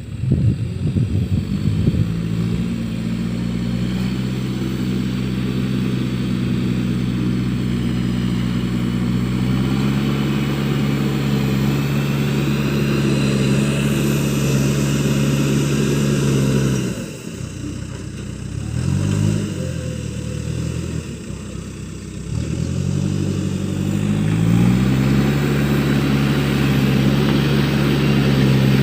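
Case backhoe loader's diesel engine running at working revs with a steady note. About two-thirds of the way through the revs drop suddenly, rise and fall briefly for a few seconds, then climb back to a steady working speed.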